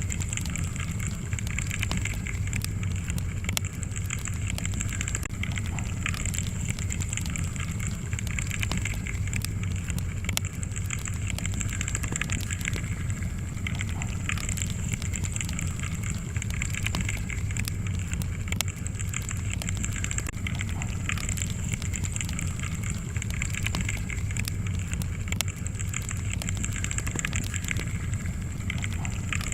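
Wood fire burning in a fireplace: a steady low rumble of flames with many small crackles and pops from the burning logs.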